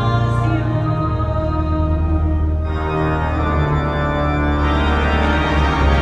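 Pipe organ playing sustained full chords over deep bass notes, changing chord about halfway through, in a large stone cathedral.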